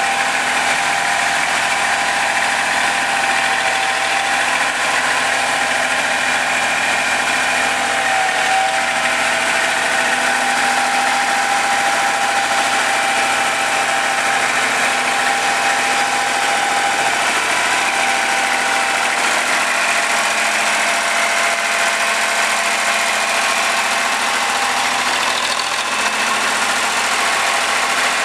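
Vintage road roller's engine running at a steady, even speed as the roller creeps slowly forward.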